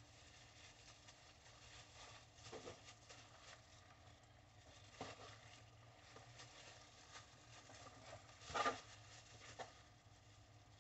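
Near silence, broken by a few faint knocks and handling sounds of a knife cutting raw pig intestines on a plastic table. The clearest knock comes about two-thirds of the way through.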